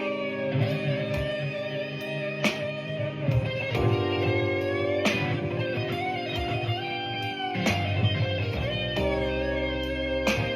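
Electric guitar playing a slow blues: chords struck about every two and a half seconds, with notes that ring on and some that are bent up in pitch.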